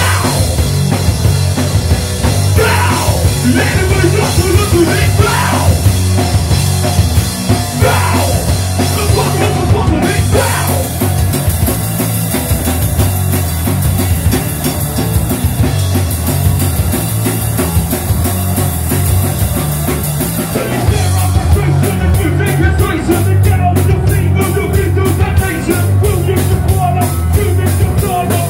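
A live rock band, loud: drum kit, electric guitar and bass under vocals sung into microphones, in a punk-rock style. About three-quarters of the way through, a fast, even run of drum hits comes to the fore.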